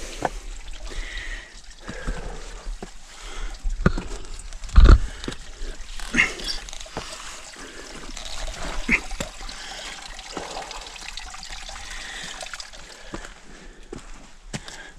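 Footsteps, scuffs and hand contact on granite boulders during a steep scramble: irregular knocks and scrapes, with one loud thump about five seconds in.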